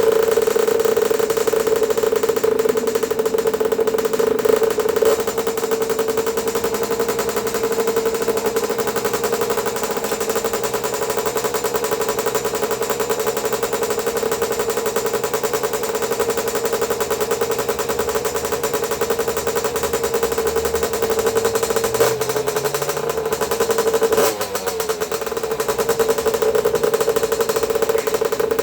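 Small 50cc pit bike engine running steadily at a high, even pitch, with a brief change in note and a dip in level a little over twenty seconds in.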